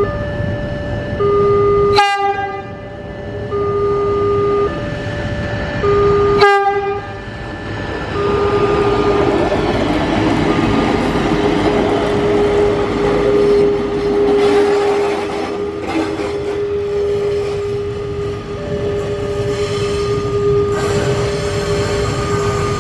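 Kereta Ukur Ciremai track-recording railcar arriving and rolling past, its running noise swelling in the middle. Over it, a two-tone warning alternates low and high about once a second, with two sharp clicks in the first seven seconds, then the low tone is held for over ten seconds before the alternation returns near the end.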